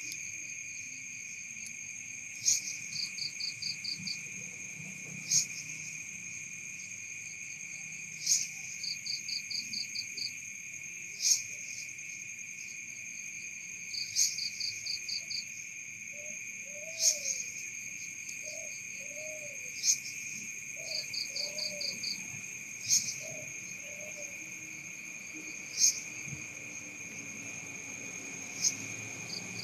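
Night insect chorus: crickets keep up a steady high drone. One insect nearby gives a sharp chirp about every three seconds, each followed by a quick run of about six softer pulses. A few faint low calls come in around the middle.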